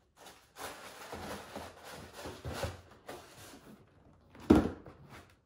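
Cardboard shoe box being handled: about three seconds of rustling and scraping as the shoe and lid go back in, then a single sharp thump as a box is set down.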